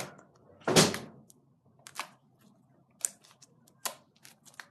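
Slime being squeezed and poked by hand: one loud squelch about a second in, then scattered short, sharp clicks and pops.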